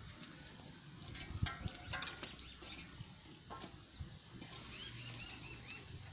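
Small wood fire crackling as its sticks are poked and shifted, with an animal calling briefly about two seconds in and a bird chirping a quick run of short notes about five seconds in.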